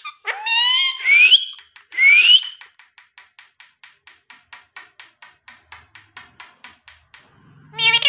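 Indian ringneck parakeet giving three short rising calls, then tapping its beak against a glass tabletop in a quick run of sharp clicks, about four to five a second, for several seconds.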